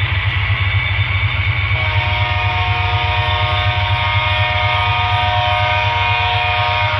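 Digital sound from an HO scale model diesel locomotive: a multi-tone air horn chord held for about five seconds, starting about two seconds in, over a deep, pulsing engine rumble from a Broadway Limited Rolling Thunder subwoofer system.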